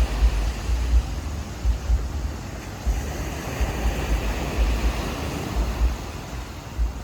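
Ocean surf washing on a beach, a steady hiss, with irregular low gusts of wind buffeting the microphone.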